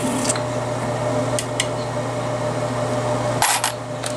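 A small electric motor humming steadily, with a few short clicks; the loudest click comes about three and a half seconds in.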